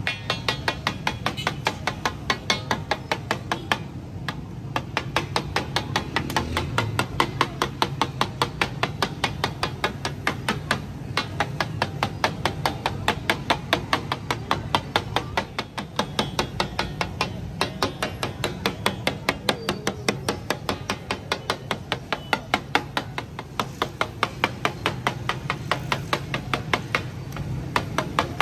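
A flat metal spatula strikes and chops on a large iron tawa griddle in a fast, steady rhythm of sharp metallic clacks, several a second, with a couple of brief pauses. It is the sound of a daal and egg fry being chopped and mixed on the griddle.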